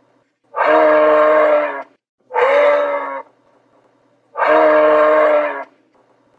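Moose calling: three long calls with quiet gaps between them, the second one shorter.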